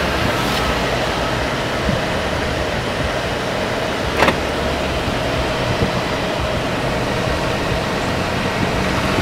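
Steady road and engine noise heard inside a moving car's cabin, with a single sharp click about four seconds in.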